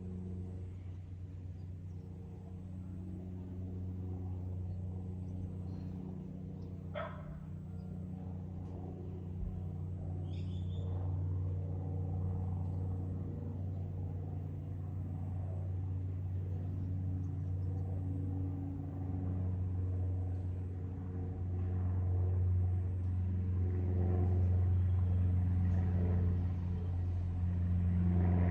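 Low, steady engine drone made of several steady tones, slowly growing louder. A short bird call sounds about 7 seconds in and another brief chirp about 10 seconds in.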